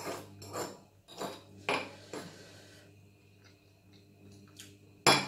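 Metal spoon scraping and clinking on ceramic plates and a small sambal dish: several short scrapes in the first two seconds, then quieter, with one sharp knock near the end that is the loudest sound.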